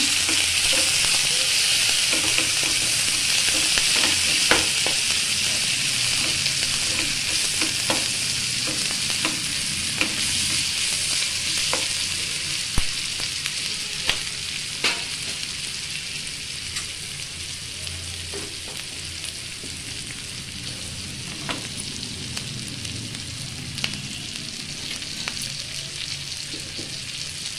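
Onions, green chillies, leafy herbs and ginger-garlic paste sizzling in hot oil and ghee in a frying pan, the paste being fried until its raw smell goes. A steel ladle stirs and scrapes the pan, giving scattered clicks and taps, and the sizzle slowly fades.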